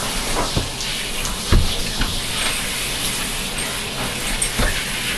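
Handheld shower sprayer running steadily, water hissing onto a wet dog's coat and into the bathtub. A few dull thumps sound over it, the loudest about a second and a half in.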